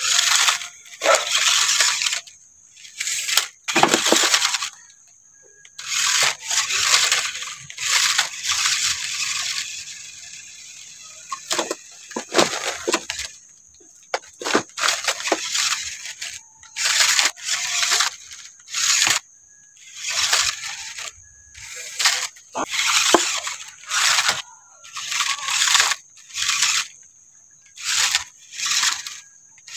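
Toy RC off-road car driven in repeated short bursts of throttle, its motor and drivetrain running and its tyres scrabbling on loose dirt as it tries to climb a steep bank, with short pauses between bursts.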